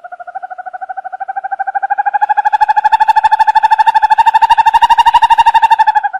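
An owl giving one long, rapid trill of about a dozen notes a second, growing louder and creeping up in pitch, then stopping abruptly near the end.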